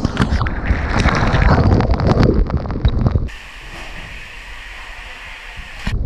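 Water and body rushing down the inside of a trapdoor-launch water slide tube after the floor drops away: a loud rush full of knocks and bumps for about three seconds, then a quieter steady rush.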